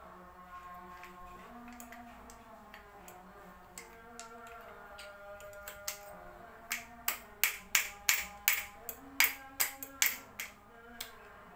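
A quick run of about fifteen sharp clicks, roughly three a second, from a hand tool working on the motorcycle's front brake caliper while its pistons are pushed back in. Background music plays throughout.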